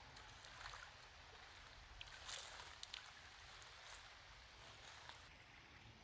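Near silence: faint outdoor creekside ambience with a few soft rustles, most of them around two to three seconds in.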